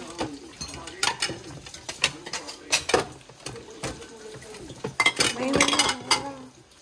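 Dishes and cutlery clinking and clattering as they are handled during hand washing at a sink: a series of sharp knocks, busiest about five seconds in.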